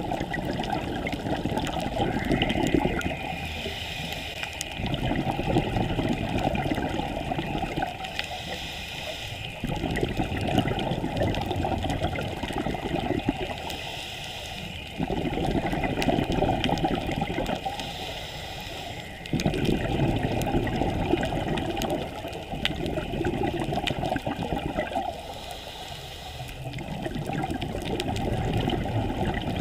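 Scuba diver's regulator breathing heard underwater: exhaled bubbles gurgle and rush in bursts every four to five seconds, with quieter spells between breaths.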